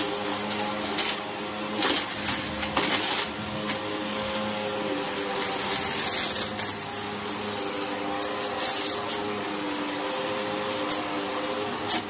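Upright bagless vacuum cleaner running steadily on carpet, its motor holding a constant pitch. Several short clicks and rattles cut through as grit and small debris are sucked up.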